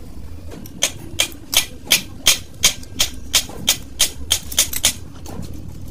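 Hand ratchet on a long socket extension turning a bolt on a truck power steering gearbox cover, clicking in an even run of about three clicks a second for some four seconds.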